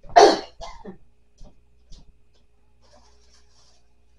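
A plastic bag being grabbed and handled: one loud rustle about a quarter second in, then a few light ticks and a faint crinkle near the end.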